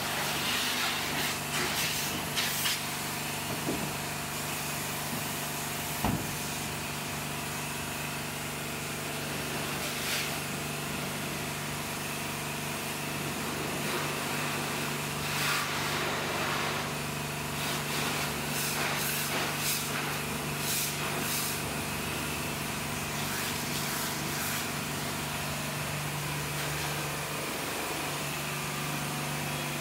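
A pressure washer running: its motor and pump hum steadily while the spray wand jets water onto a car, with the water hissing and spattering louder in stretches. The hum breaks off briefly near the end, and there is a single sharp knock about six seconds in.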